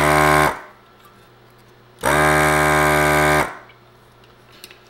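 Handheld desoldering gun's vacuum pump switched on twice, briefly at the start and then for about a second and a half from about two seconds in. Each time it gives a steady motor hum with a hiss of suction as it draws molten solder off the circuit board's joints.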